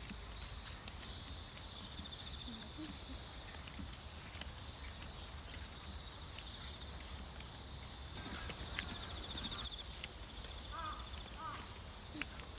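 Field insects trilling in repeated high, pulsing phrases of a second or so, over a low steady rumble of wind, with footsteps on a paddy-field path and a few short bird chirps near the end.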